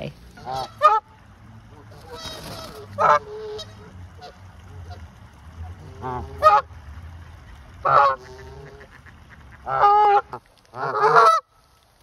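Canada geese honking: about seven separate short honks at irregular intervals, the loudest near the end.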